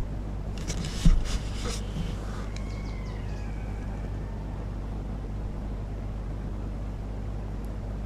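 A short burst of rustling and crackling with one sharp knock about a second in, then faint falling whistling cries, over a steady low hum.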